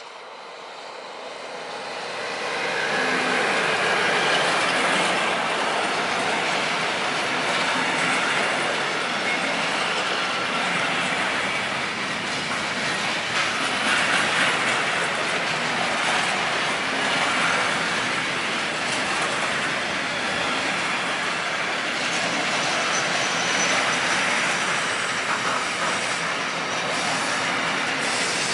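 Electric freight train passing close by. The noise swells over the first few seconds as the locomotive approaches, then a long string of pocket wagons carrying road semi-trailers rolls past with a steady rolling noise of wheels on rail.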